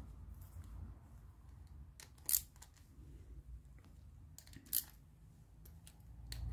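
Faint, scattered clicks of a ratchet wrench and socket tightening the retaining-plate screws on an LPG injector rail, with two sharper clicks about two and a half and five seconds in.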